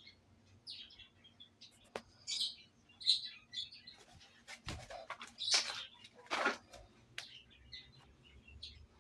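Small birds chirping in short, repeated calls, with a few sharp clicks and knocks in between.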